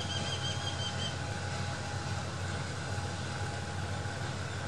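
Diesel locomotive engine running steadily with a low rumble, with a brief high squeal during the first second.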